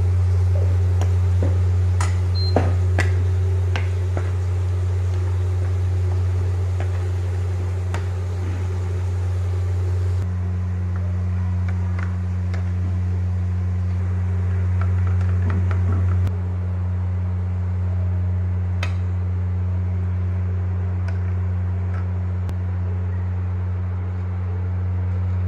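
A steady low hum with scattered light clicks and knocks of a metal ladle and dishes. Over the first ten seconds a faint sizzle of potato pakoras frying in oil sits under the hum.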